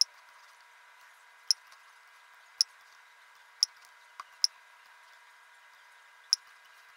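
Computer mouse clicking: seven sharp single clicks at uneven intervals, two close together about four seconds in, over a faint steady electronic hum.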